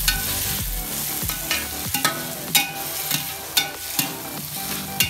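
Sliced onions sizzling as they fry in oil in a brass uruli, stirred with a metal spatula that scrapes and knocks against the pan in several sharp strokes.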